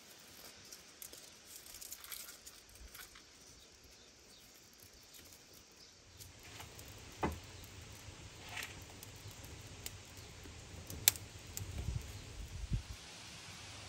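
Dry twig kindling being handled and catching fire: faint rustling and snapping, a few sharp cracks, and a low rumble that sets in about halfway through.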